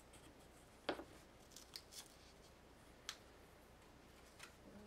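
Small handling noises of a plastic embossing-powder pot and paper on a craft mat: one soft knock about a second in, then a few light clicks and ticks, over near silence.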